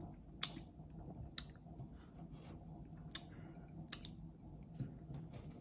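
Quiet chewing of a chocolate cookie, with about five faint, sharp mouth clicks spread through.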